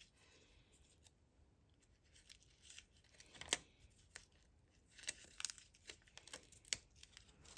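Faint crafting handling sounds: a few sharp clicks and soft crackling and peeling as trim is pressed onto glue dots and lifted off their backing sheet.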